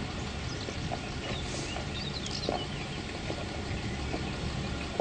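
Footsteps of a group walking slowly on a paved road, soft clicks about every second, over a steady low outdoor rumble, with birds chirping faintly in the middle.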